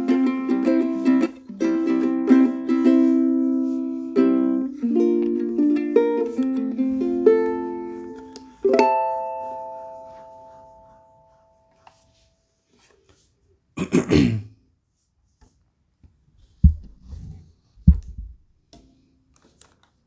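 Ukulele playing a run of plucked notes and chords, ending on a chord that rings out and fades over a few seconds. Then comes a short scrape, followed by a few low thumps.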